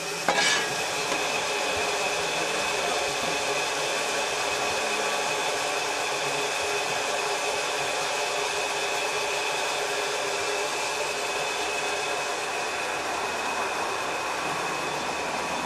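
Steady hiss of steam escaping from a steam locomotive, holding an even level with a few faint whistling tones in it and no exhaust beats.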